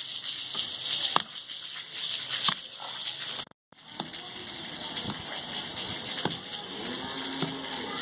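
Hand digging in dirt and broken rubble: scattered knocks and scrapes, roughly one a second, over a steady high hiss. The sound drops out briefly in the middle.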